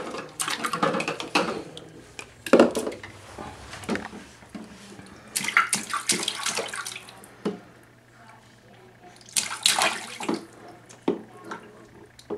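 A baby splashing and slapping the water in a small plastic baby bathtub with her hands, in irregular bursts of splashes with short quiet spells between.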